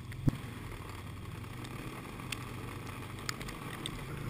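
Snowmobile engine running with a steady low drone while riding. A sharp knock comes just after the start, and a few fainter clicks follow.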